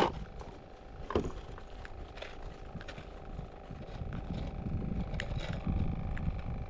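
A motor running steadily with an even hum, and two sharp knocks, one right at the start and one about a second in.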